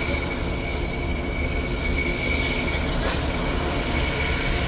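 Whitcomb 65-ton diesel-electric locomotive running, a steady low rumble with a steady high-pitched whine over it.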